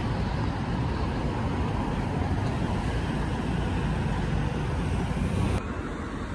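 Steady city street traffic noise, a wash of passing vehicles. About five and a half seconds in it turns a little quieter and duller.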